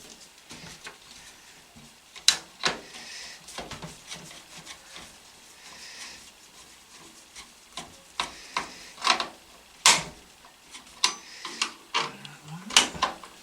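Hands working inside an old desktop PC case: irregular plastic and metal clicks, knocks and rubbing as parts are handled and dust is cleaned out.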